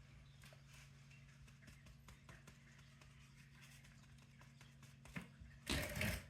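Quiet room with a steady low hum and faint scattered ticks, then near the end a short, loud hissing burst.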